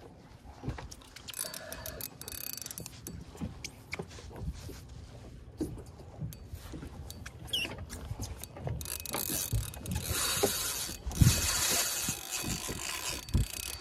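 Spinning reel fighting a big jack crevalle: scattered clicks as the reel is worked, then two long buzzing runs of the drag giving line to the fish in the last five seconds.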